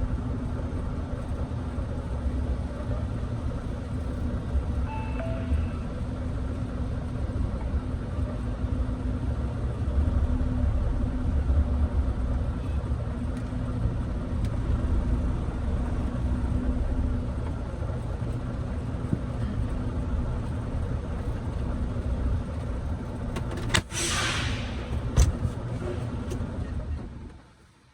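Semi-truck diesel engine running at low revs with a steady rumble. About three-quarters of the way through comes a hiss of about a second, like air let out of the brakes, with a couple of sharp clicks around it, and then the sound drops away shortly before the end.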